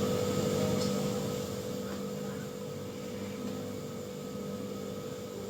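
A steady background drone with a constant low hum, gradually fading slightly.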